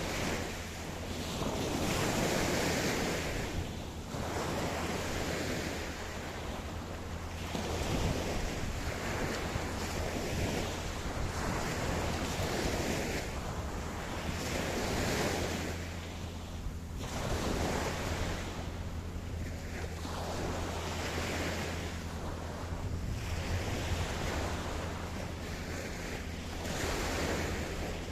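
Ocean surf breaking on a beach, the wash swelling and falling away every few seconds, over a steady low rumble of wind.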